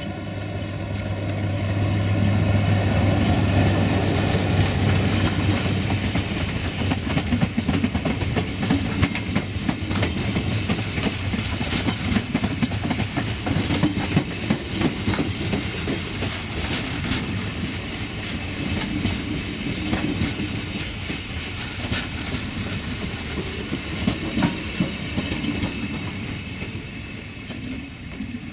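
LDH1250 diesel-hydraulic locomotive passing close with a loud low engine drone, loudest a few seconds in, hauling a rake of Bombardier Talent multiple units. The cars then roll by with continuous wheel rumble and repeated clicks over the rail joints, easing slightly near the end.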